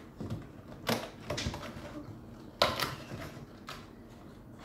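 Stiff clear plastic packaging crackling and clicking as it is handled and slid off a cardboard tray. The sharp crackles come in irregular clusters: about a second in, and loudest near the middle.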